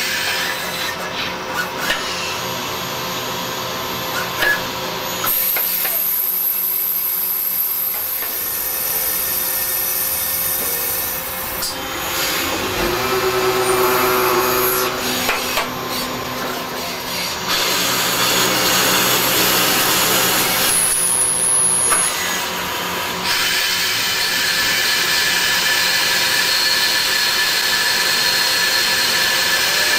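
CNC lathe running: steady machine noise with constant tones, shifting in character several times.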